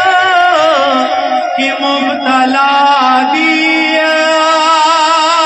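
Two men singing a Pashto naat into microphones, in long held notes that waver and bend in pitch.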